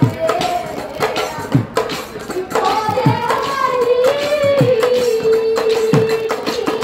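Assamese nagara naam devotional music: a woman sings a melody that settles into a long held note, over deep nagara drum strokes roughly once a second, each dropping in pitch just after the hit, and sharp cymbal clashes.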